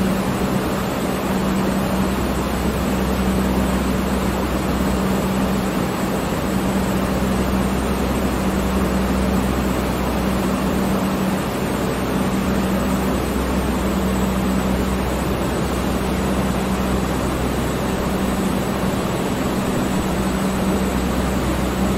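Electric fan running steadily: an even rush of air over a constant low motor hum.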